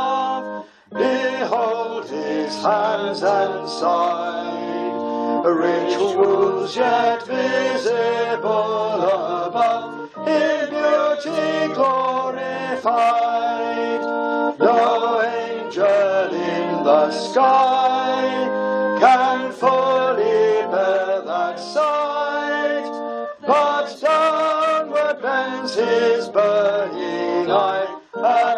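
A slow hymn sung with instrumental accompaniment, in long held notes moving phrase by phrase.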